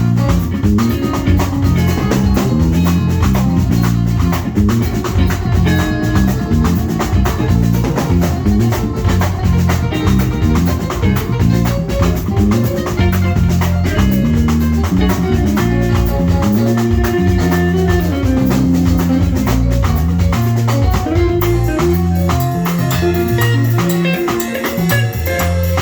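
Live band playing an instrumental groove at a sound check, with drums and a moving bass line under busy pitched instrument parts. The top end gets brighter about four seconds from the end.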